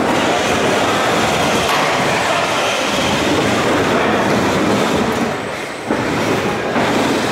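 Featherweight combat robots running in the arena: a steady, loud, rattling mechanical noise from their motors. It drops briefly about six seconds in.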